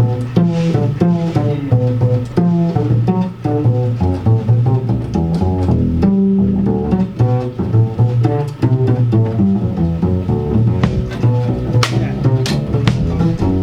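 Instrumental music with a busy line of short, low pitched notes, with a few sharp percussive hits near the end.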